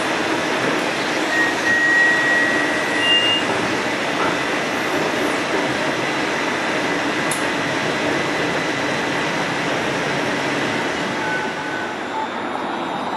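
Interior running noise of a United Streetcar-built streetcar in motion: a steady rolling rumble and hiss from wheels on rail and the car's equipment, with a few brief thin high squeals.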